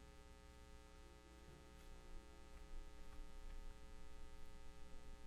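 Faint, steady electrical hum: room tone in a pause between spoken words.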